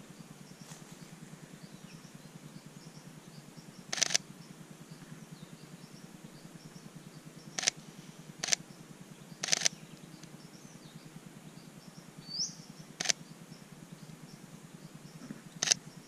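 Sony a7 III camera shutter firing six times in short bursts, some as quick double clicks. A bird gives one short rising chirp a little after the middle.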